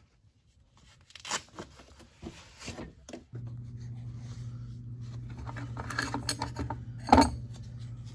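Clinks and knocks of steel mower-deck hardware being forced into place on a John Deere D-140. The part needed persuasion, and the loudest is a sharp knock about seven seconds in. A steady low hum starts about three seconds in.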